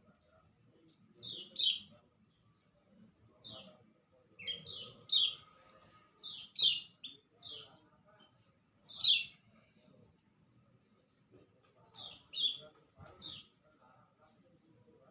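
A bird calling in short, high chirps that slide downward in pitch, given singly and in quick runs of two or three at irregular intervals, over a faint steady high-pitched whine.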